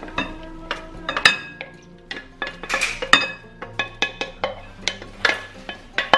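Wooden spoon scraping and knocking against a stainless steel frying pan as cooked minced meat is tipped out into a glass bowl. It makes a run of irregular sharp clinks, some with a brief metallic ring.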